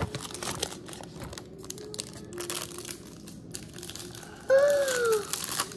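Thin plastic blind-bag packaging crinkling and tearing as a small toy packet is opened by hand. Near the end there is a short, loud, falling high-pitched squeal.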